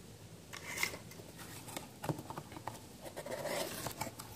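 Faint rustling and scattered light clicks of a cardboard tool box and its packaging being handled and opened.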